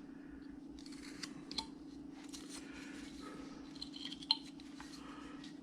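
Carving knife shaving wood by hand: a few faint, short scrapes and clicks of the blade cutting, over a steady low hum.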